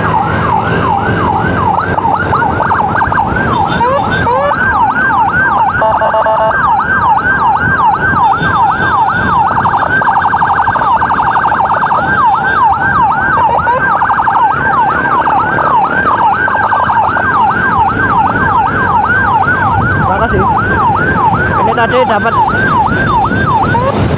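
Emergency siren in a fast yelp, its pitch sweeping up and down about three times a second. About six seconds in it briefly switches to a steady horn-like tone. Motorcycle engine and road noise run underneath.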